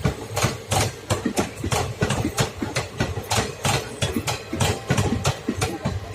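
Passenger train's wheels clattering over rail joints and points, a quick run of sharp knocks, about four or five a second, over a low rumble.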